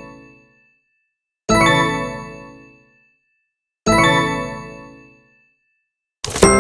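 Interface popup notification chimes: bright struck ding tones made of several pitches together, each starting suddenly and ringing out over about a second and a half. The tail of one chime fades at the start, two more sound about two and a half seconds apart, and another begins near the end with a quick double attack.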